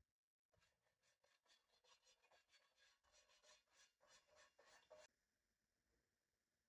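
Faint, quick rubbing strokes of a pastry brush spreading oil over a non-stick frying pan, stopping abruptly about five seconds in.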